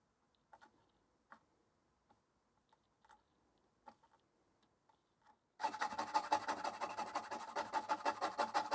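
A few faint ticks, then, about five and a half seconds in, a stiff brush starts scrubbing back and forth over freshly soldered PLCC socket pins on a wet circuit board, in rapid scratchy strokes.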